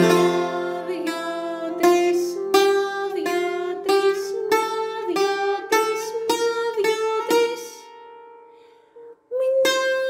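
Bouzouki played solo: a slow melodic phrase of single picked notes with quick triplet figures, each note ringing on. The notes die away about eight seconds in, and playing starts again near the end.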